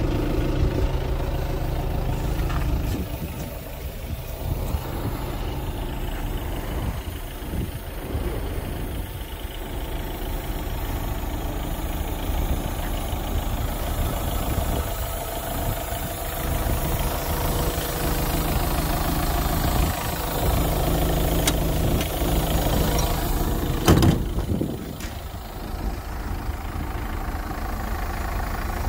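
Kubota U55-4 mini excavator's diesel engine idling steadily. About three-quarters of the way through there is a single sharp knock.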